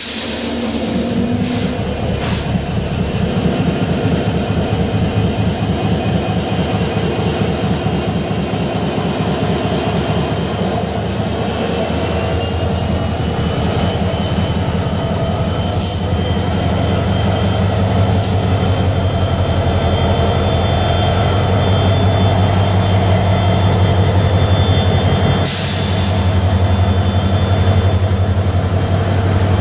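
Several diesel-electric locomotives of a Babaranjang coal train passing slowly at close range, their engines running with a steady low throb. A whine rises about twelve seconds in and then holds, and there are brief hisses near the middle and again near the end.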